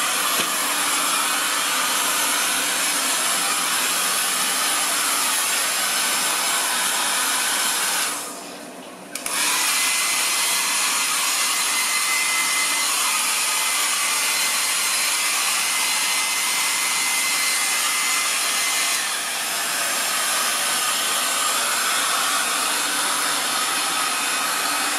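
Handheld hair dryer blowing steadily on a dog's damp coat. About a third of the way in it drops away for about a second, then comes back abruptly.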